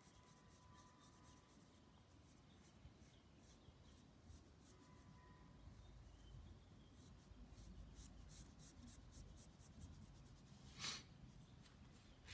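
Faint scratching of a graphite pencil on paper in many short shading strokes, with one louder scrape near the end.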